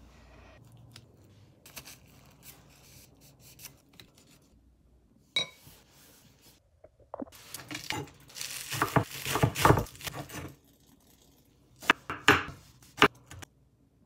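Knife chopping green onions on a wooden cutting board in quick runs of sharp strikes, a long run past the middle and a shorter one near the end. A single ringing clink comes about five seconds in.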